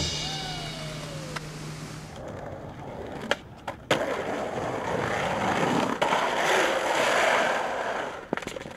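Skateboard wheels rolling on concrete and asphalt, a steady rolling noise from about four seconds in, with several sharp clacks of the board scattered through. The last notes of music ring out and fade over the first second or so.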